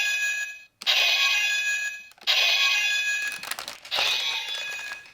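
Electronic slash sound effect from a CSM Medagaburyu (Tyrannosaurus battle axe) toy's built-in speaker, triggered about four times in a row, each a bright, ringing burst of about a second and a half with short gaps between.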